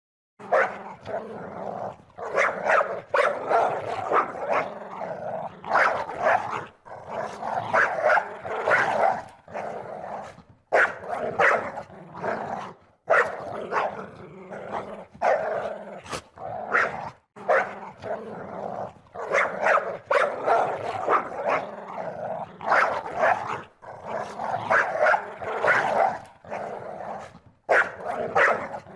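A dog growling and barking aggressively, as when defending its territory: rough growls run on under repeated loud barks, in bursts separated by short breaks every few seconds.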